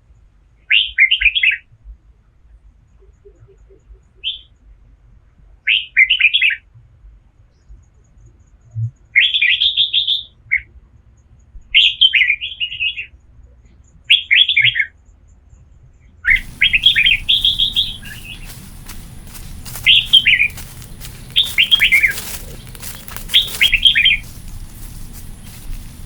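A songbird singing short, loud, chirpy phrases over and over, one every one to two seconds. About two-thirds of the way through, a steady hiss with some crackling comes in underneath the song.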